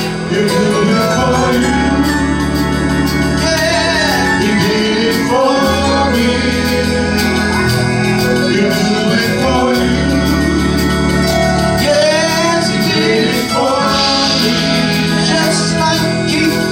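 Gospel worship music: voices singing over instrumental accompaniment, with sustained bass notes that change every couple of seconds.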